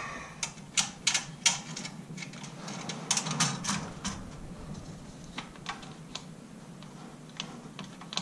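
Hands working a Panzer AR12 Pro shotgun magazine: a run of sharp clicks and short scrapes, busiest in the first four seconds and thinning out after.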